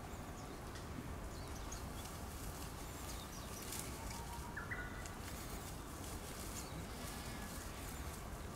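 Steady outdoor background noise, with a few faint short high chirps and one brief thin tone about halfway through.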